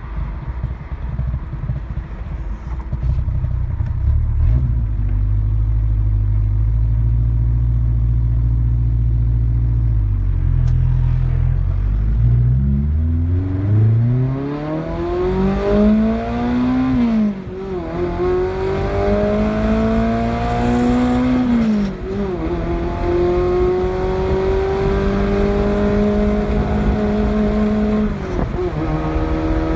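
Tofaş Doğan SLX engine running steadily at low revs, then accelerating hard from about twelve seconds in. The revs climb through the gears, and the pitch drops at three shifts, about seventeen, twenty-two and twenty-eight seconds in.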